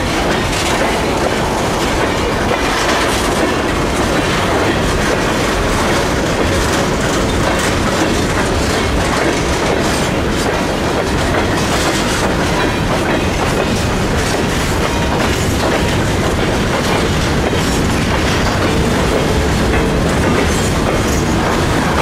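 A Norfolk Southern freight train's tank cars and covered hopper cars rolling past close by: a steady loud rumble of steel wheels on rail, with repeated clicks as the wheels cross rail joints.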